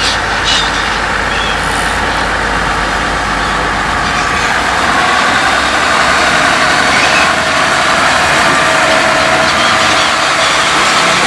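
A train running by: a steady mechanical din, with a motor whine that rises slowly in pitch over the last few seconds.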